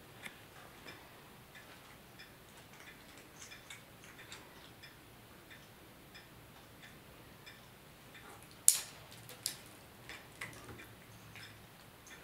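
Wall clock ticking softly and evenly, with a sharp, louder click a little under nine seconds in and a smaller one just after.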